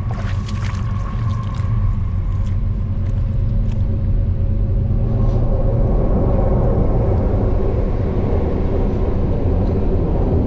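Train crossing a bridge overhead: a steady, heavy low rumble that grows louder and fuller about halfway through.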